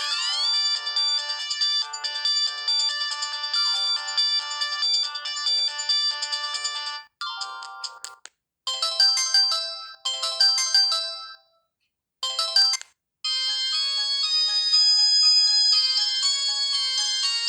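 Samsung GT-E1080F mobile phone's built-in ringtones playing one after another. One melody ends about seven seconds in, three short tunes follow with brief silent gaps, and a new melody starts about thirteen seconds in.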